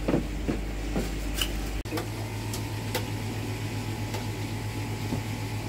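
Steady electrical hum of running pond pumps, with a few light clicks. About two seconds in the hum drops out for an instant and returns with a different, slightly throbbing tone.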